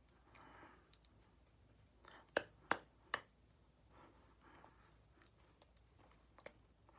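Hands moving while someone signs in sign language, with three sharp slaps in quick succession a little over two seconds in and a smaller tap near the end, against faint rustling.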